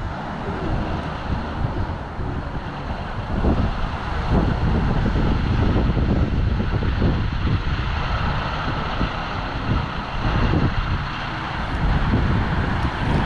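Wind buffeting the microphone: a gusty low rumble that swells and eases, over a steady outdoor hiss.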